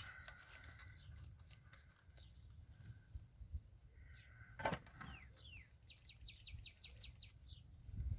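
A small songbird singing faintly: a few slower falling notes, then a fast trill of about nine short downward-sweeping notes, roughly five a second. A sharp click comes just before the song.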